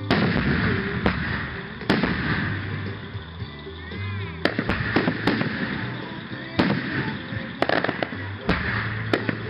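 Aerial fireworks shells bursting, about a dozen sharp bangs at uneven intervals, several coming in quick clusters in the middle and near the end.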